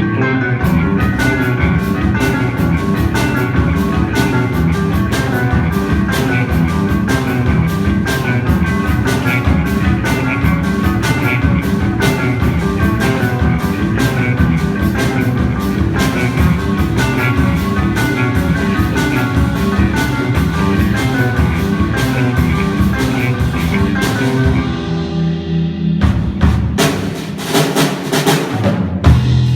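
Rock band playing live, with electric guitar, bass and drum kit. Near the end the drums and cymbals drop out for a couple of seconds, then come back in with heavy accented hits.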